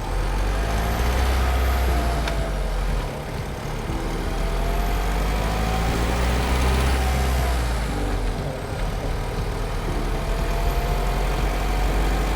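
Renault Master IV van's 2.3 dCi four-cylinder diesel engine running while driving, with a steady deep engine drone under broad road and wind noise. The engine pitch rises and falls a few times.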